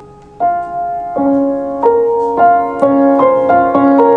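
Background piano music: single notes struck one after another, each ringing on, coming closer together and building toward the end.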